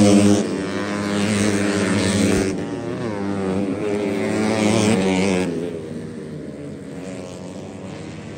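Racing motorcycle engines running at high revs as the bikes pass around the circuit, the pitch shifting through the gears. The sound changes sharply about two and a half seconds in and drops away after about five and a half seconds, leaving a fainter engine still running.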